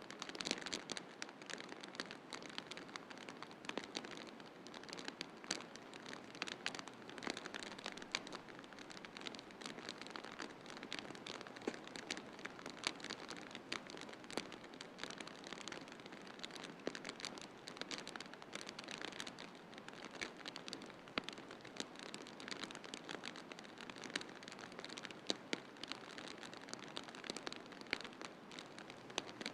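Wood fire crackling in a fireplace: many irregular pops and snaps over a steady, even hiss.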